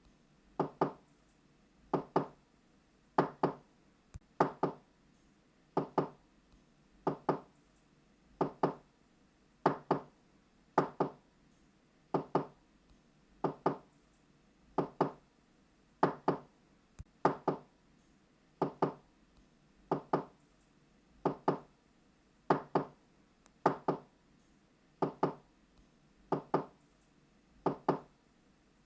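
Knocking on a door: quick double knocks, knock-knock, repeated steadily about every second and a quarter.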